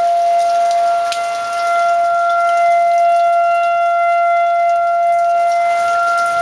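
Outdoor tornado warning siren sounding one steady tone that neither rises nor falls: the all-clear signal after a tornado warning.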